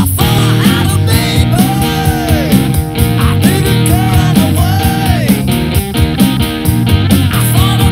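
Loud rock music led by guitar over a steady beat.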